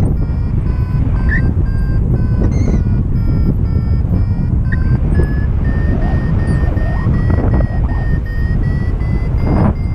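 Heavy wind rush on the microphone in flight, with a paragliding variometer beeping over it in short tones. About halfway through the beeps jump higher and come closer together, creeping slowly up in pitch, the vario's signal of a stronger climb in lift.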